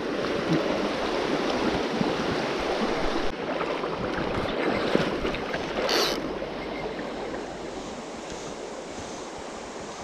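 Shallow mountain stream rushing over stones, a steady wash of water, fainter over the last few seconds. A brief sharp noise comes about six seconds in.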